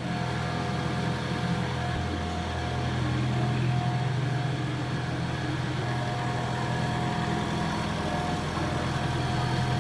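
Heavy diesel machinery engine running steadily, with a low hum and a faint high whine; the engine note dips briefly about two seconds in.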